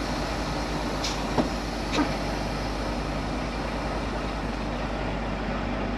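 Semi truck's diesel engine running steadily, heard from inside the cab, with a couple of faint clicks about a second and a half and two seconds in.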